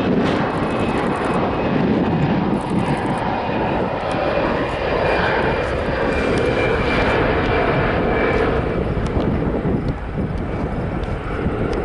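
Jet airliner's engines running loud and steady as the plane passes, with a faint high whine over the rush, easing slightly near the end.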